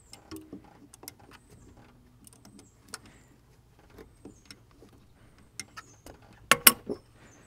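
Scattered light clicks and taps of hands handling the red plastic plug and clear bleed tube on a new brake master cylinder port, with a louder pair of knocks near the end.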